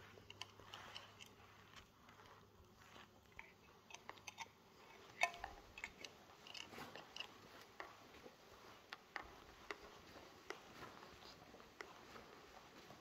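Faint, irregular clicks and taps in a quiet small room, with one sharper click about five seconds in.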